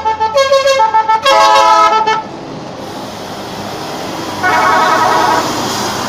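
Indonesian bus's multi-tone telolet horn playing a quick melody of changing notes, ending about two seconds in. The bus then passes close with a steady rushing noise, and another horn chord sounds for about a second near the end.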